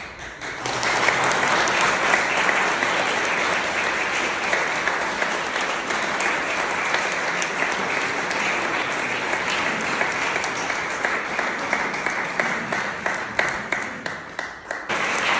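Audience applauding, a dense and steady clapping that dies away near the end.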